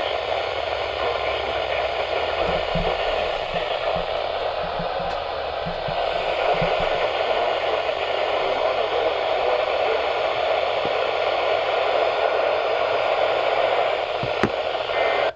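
Weather radio receiver hissing with static through its small speaker, a steady hiss with a sharp click just before it cuts off suddenly at the end.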